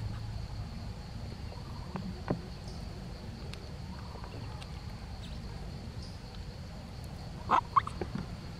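Steady background hum under a thin, steady high whine, with scattered faint clicks and two short squeaks about seven and a half seconds in.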